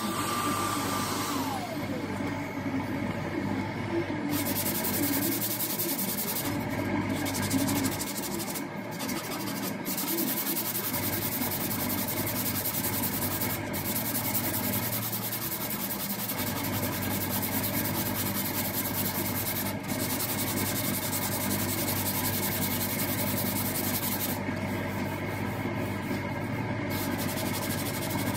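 Steady rubbing and sanding on the car's bodywork, continuing without a break. In the first second or two a falling whine sounds as a tool winds down.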